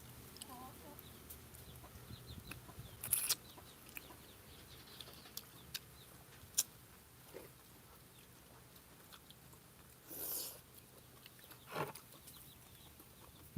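Quiet eating of rambutan: scattered small clicks and a few short louder rustling bursts from peeling and chewing the fruit, with chickens clucking faintly now and then.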